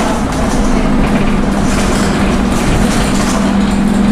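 Dennis Dart bus's Cummins diesel engine running under way, a steady low drone over continuous road and running noise.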